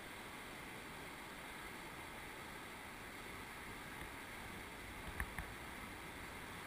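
Steady rush of river water pouring over a weir, with two short knocks about five seconds in.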